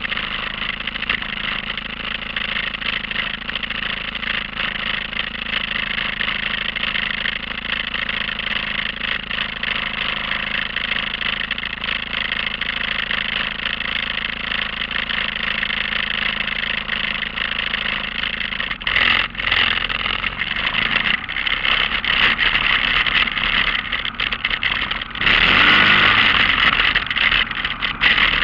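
Off-road vehicle's engine idling steadily, then the machine pulls away about two-thirds of the way in and the engine runs louder and rougher, with a louder burst of throttle near the end.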